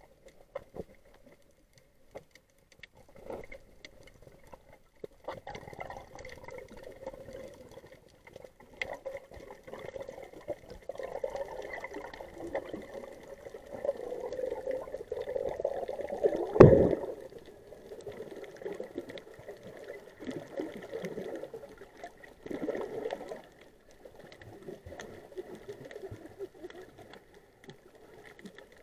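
Underwater sound heard through an action camera's waterproof housing: muffled water movement with scattered crackling clicks and a faint steady whine. A single sharp knock stands out about seventeen seconds in.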